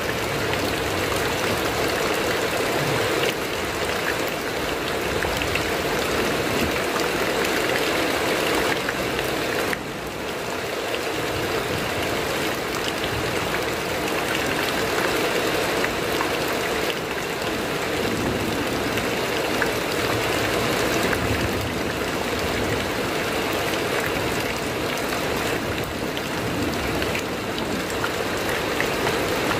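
Heavy rain drumming steadily on a corrugated metal roof, a dense, even hiss that eases briefly about ten seconds in.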